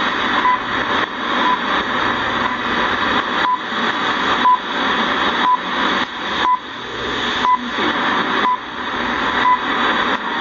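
Shortwave time-signal station received on a 1970s KENTEC BCL-1 communications receiver: a short beep once a second over steady static hiss from a weak signal.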